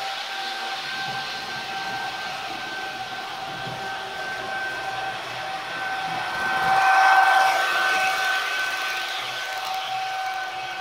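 Nusser Modell sound decoder in an H0 model ÖBB Taurus (class 1116) locomotive, playing the electric loco's running sound through its small speaker: a steady two-tone whine over a hiss, swelling louder about seven seconds in.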